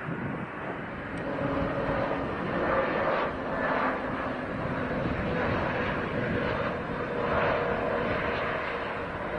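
Airbus A320neo airliner's jet engines running with a steady rushing sound, swelling a little about a third of the way in and again near the end.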